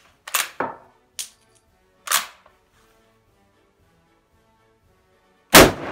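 Four sharp clacks in the first two seconds, then about five and a half seconds in a single very loud rifle shot from a Mannlicher M1895/30 firing 1938 8x56mmR ammunition, echoing off the range. Faint background music runs underneath.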